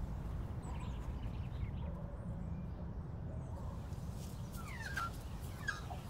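Outdoor ambience: a steady low rumble of wind or distant traffic, with scattered faint high chirps and short falling calls, most of them in the second half.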